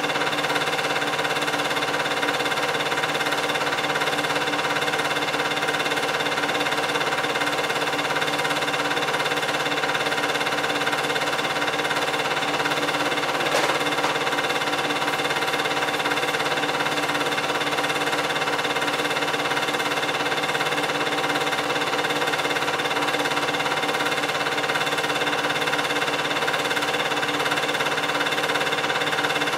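8mm film projector running, a steady mechanical whir and hum with no change in level, with one small click about halfway through. It is the only sound: the silent film itself has no soundtrack.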